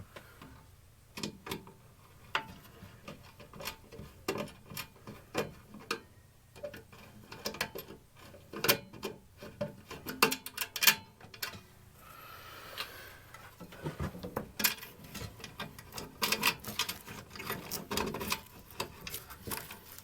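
Irregular clicks, taps and small knocks of hand tools and screws during electrical wiring work: terminal screws being loosened and wires and box parts handled. A short scraping sound about twelve seconds in.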